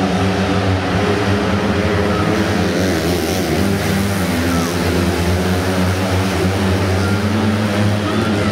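Engines of several small winged dirt-track sprint cars running at racing speed around an indoor dirt oval, their pitch wavering up and down as they drive through the turns.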